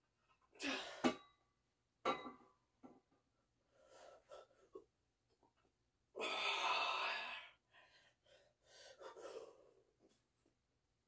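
A person breathing hard with effort during barbell curls, a forceful exhale every two seconds or so. The longest and loudest breath comes about six seconds in, and there are a couple of sharp clicks near the start.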